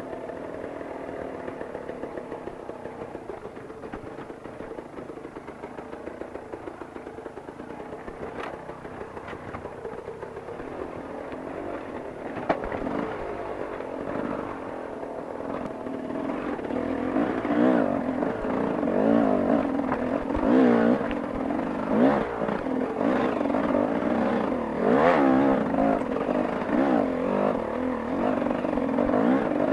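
Enduro dirt bike engine heard from on the bike, running low and steady at first, then louder from about halfway with the revs rising and falling repeatedly as it climbs over rocks, with scattered knocks and clatter from the bike hitting stones.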